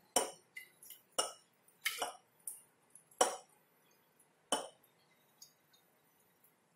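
Glass flask rim clinking against a glass graduated cylinder as pure water is poured in a little at a time: a string of irregular small, sharp clinks with quiet between them.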